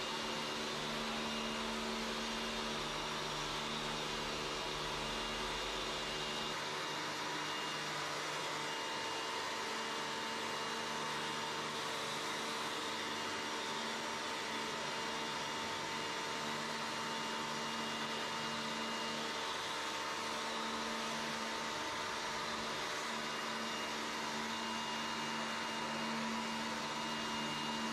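Pressure washer running steadily, a constant motor-and-pump hum with the hiss of its water jet as the lance sprays a steel roof.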